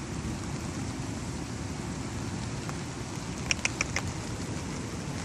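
Steady rain pattering on an umbrella overhead, with a quick run of four sharp ticks about three and a half seconds in.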